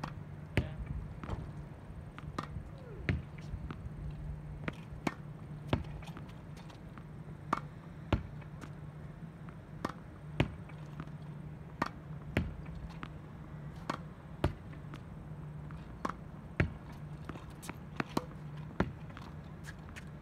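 Tennis ball hit against a practice wall in a steady rally: sharp pops of the racket striking the ball, the ball smacking off the wall and bouncing on the hard court, about one a second, over a steady low hum.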